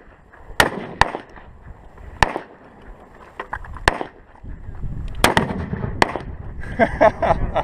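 Gunshots at an outdoor range: about six sharp reports at irregular intervals. Voices start near the end.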